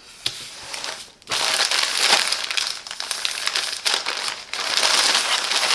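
Packaging crinkling and rustling as it is handled and unwrapped, starting about a second in and then going on busily with many small crackles.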